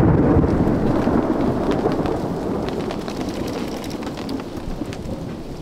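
Close thunder from a nearby lightning strike, rumbling loudest at first and then slowly dying away, over steady rain.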